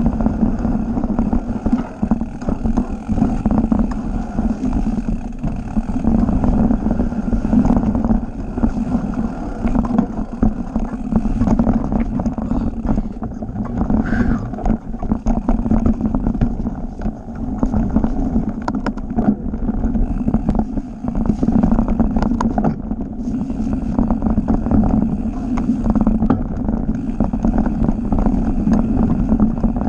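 Mountain bike riding fast down a dirt forest singletrack, heard from a handlebar-mounted camera: a steady rumble of tyres and wind on the microphone, broken by frequent clattering knocks as the bike rattles over roots and rocks.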